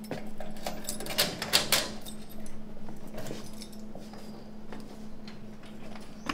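A bunch of keys jangling and clicking in the lock of a wrought-iron gate as it is unlocked and pulled open, loudest about a second in, followed by a few smaller metallic clicks. A faint steady hum runs underneath.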